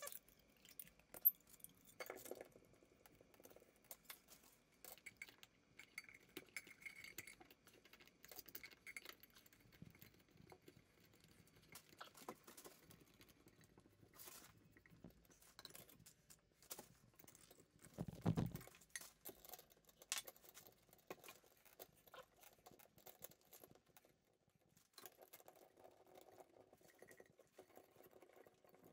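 Faint clinks, taps and rattles of a chrome P-trap and its slip nuts being handled and fitted together by hand, with a low thump about two thirds of the way through.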